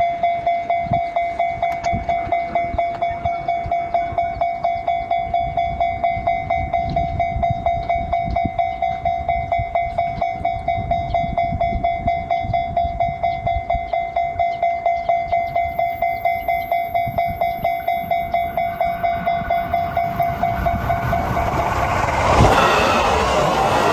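Japanese level-crossing warning bell ringing, a rapid, even run of electronic dings on one pitch. About 19 seconds in, a train approaches and passes with rising rumble and rail noise, and the bell stops partway through.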